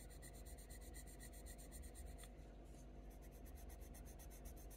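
Faint scratching of a Faber-Castell Polychromos colour pencil stroking across hot-press watercolour paper, with one small tick about two seconds in.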